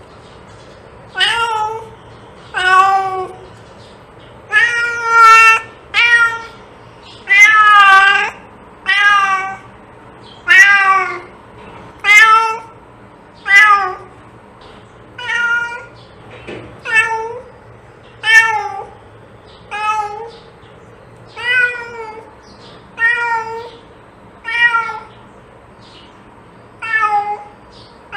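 A domestic cat meowing over and over, one short meow about every second and a half.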